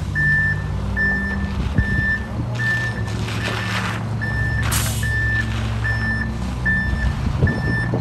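Reversing alarm on a heavy diesel truck backing up: a steady run of high single-tone beeps, a little more than one a second, over the engine's low running hum. A short sharp hiss cuts in a little past halfway.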